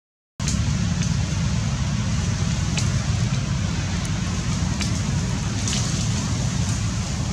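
Steady low rumbling noise with a hiss above it, cut by a moment of silence right at the start.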